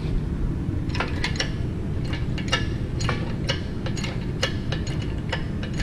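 Chain hoist clicking as it lifts the clutch-pack assembly out of a John Deere 7320 IVT transmission case: sharp metallic clicks of the pawl and chain links, roughly two a second at an uneven pace, over a steady low rumble.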